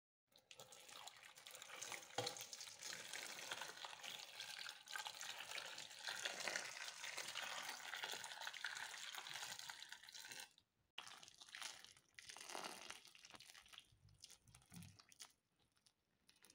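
Boiling water poured in a stream into a metal pot of whole tomatoes: a steady, faint splashing pour that stops about ten and a half seconds in, followed by a few fainter trickles and splashes.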